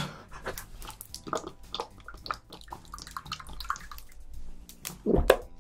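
A person gulping a small bottled drink in a run of quick swallows, with a short loud vocal gasp about five seconds in.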